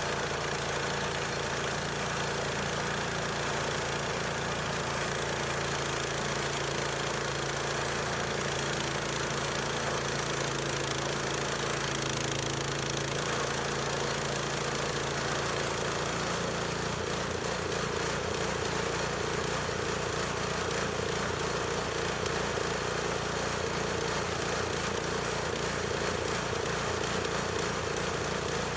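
Small gasoline engine of a portable band sawmill running steadily while the mill saws box elder. About two-thirds of the way through, the engine note shifts.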